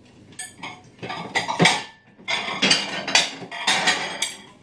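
Crockery clattering: plates knocking and clinking together as one is lifted out of a stack in a cupboard, a run of clatters from about a second in until near the end.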